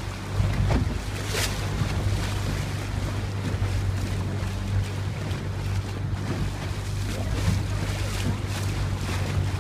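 Steady drone of a tour boat's engine as it cruises over open sea, with water splashing against the hull now and then and wind buffeting the microphone.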